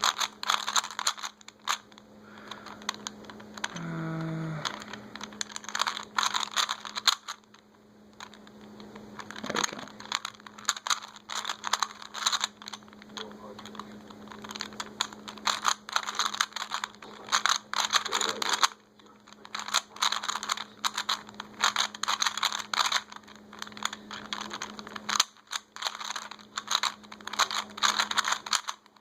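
A plastic Rubik's cube being turned by hand: fast runs of clicking and clacking as the layers are twisted, with short pauses between runs. A steady low hum sits underneath.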